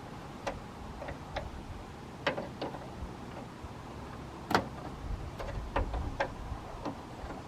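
Irregular light clicks and taps of hand work on a van's front turn signal light, about a dozen spread unevenly and the sharpest about halfway through, over a low steady rumble.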